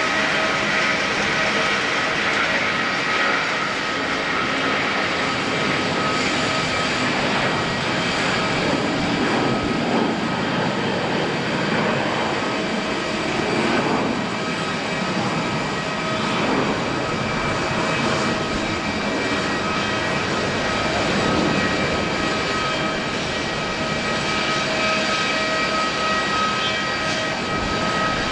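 Jet engines of a Korean Air Airbus A330-300 running: a loud, continuous rush with several steady whining tones held at an even level.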